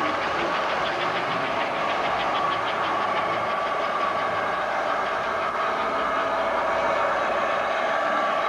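American Flyer S-gauge model trains running on the layout: a steady electric whirring hum, with a run of quick clicks from the wheels over the track joints in the first few seconds.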